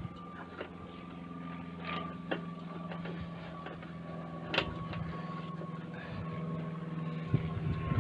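A steady low mechanical hum, like an engine running, that stops near the end, with a few faint sharp clicks.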